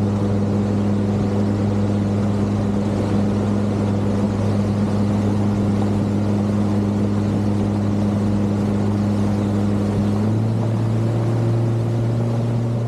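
Boat engine running steadily with a constant hum; its pitch steps up slightly about ten seconds in.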